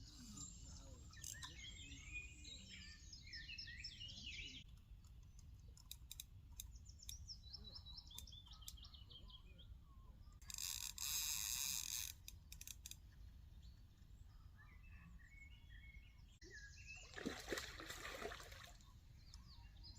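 Small birds chirping and singing over a steady low rumble, with two short rushing noises, one about ten seconds in and a louder one near the end.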